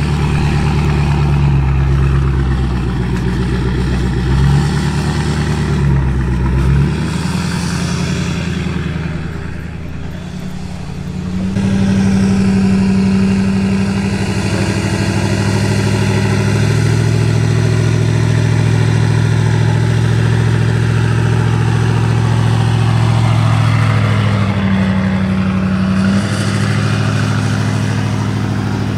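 A motor vehicle's engine running. Its note holds steady for stretches and shifts up or down in steps. It drops quieter for about two seconds near ten seconds in, then picks back up.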